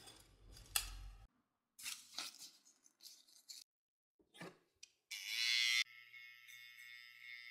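Quick edited barbering sounds: a few clicks and rustles as a paper neck strip is pulled from its dispenser and a trimmer is picked up. About five seconds in comes a short loud whir, then a cordless hair trimmer buzzes steadily at the nape.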